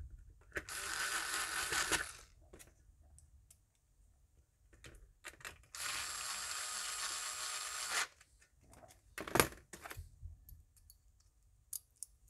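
Cordless electric screwdriver running in two spells, about one and two seconds long, driving the screws that hold a circuit board to a metal frame. Small clicks of handling and a sharp tap come between and after.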